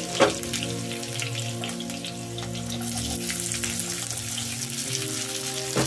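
Hot mustard oil sizzling and crackling in a kadai as whole spices and chopped green chillies fry, with light background music underneath.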